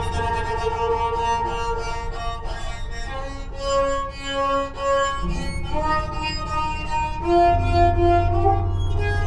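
Banjo played with a bow: held, creaky notes like a rusty gate that shift in pitch, with short repeated strokes in the middle and again near the end. A low steady hum sits underneath.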